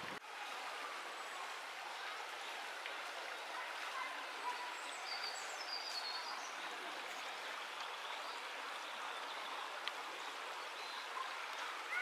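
Shallow forest stream babbling steadily over stones. A few faint, high chirps come about halfway through.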